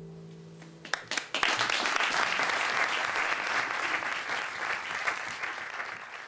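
Audience applauding at the end of a song: the last held chord dies away in the first second, then clapping breaks out about a second in and carries on steadily, thinning near the end.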